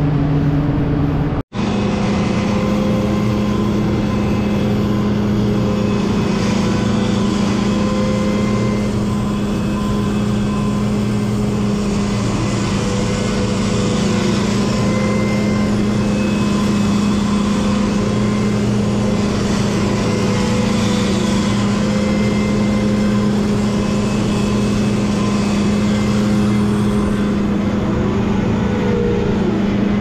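Heavy farm machine's diesel engine running steadily with a constant drone. The sound cuts out for an instant about a second and a half in.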